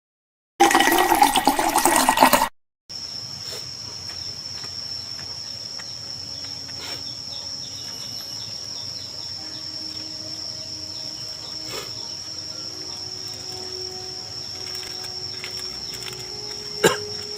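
Insects, crickets by their sound, trilling steadily in one high continuous tone. Before that comes a brief splash of running or pouring water in the first two seconds, and a single sharp click sounds near the end.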